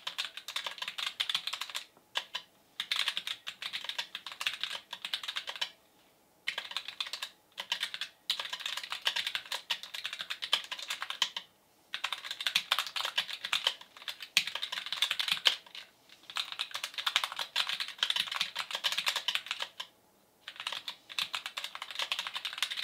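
Typing on a Roccat Vulcan TKL Pro low-profile keyboard with Titan optical linear switches: fast runs of key clacks, broken by brief pauses every few seconds.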